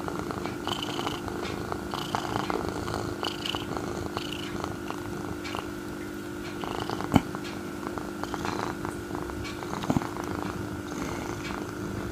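Domestic cat purring steadily, close to the microphone. Two sharp knocks stand out about seven and ten seconds in.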